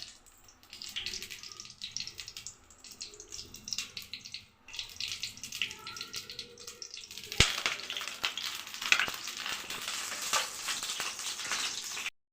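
Slit brinjals frying in hot oil in a pan, sizzling with a steady crackle that grows louder about seven seconds in, where there is also a single sharp click. The sound cuts off abruptly just before the end.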